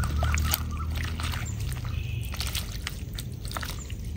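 Hands squelching through mud and small fish in a plastic basket half-sunk in shallow water, with small splashes and drips of water.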